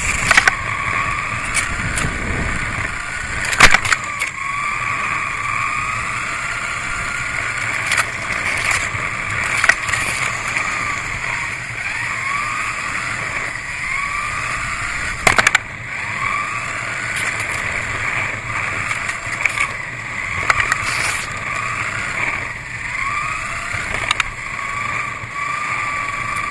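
Kyosho Mini-Z RC car's small electric motor whining, its pitch rising again and again as the car speeds up after each slowing. A few sharp clicks cut through, the loudest about three and a half seconds and fifteen seconds in.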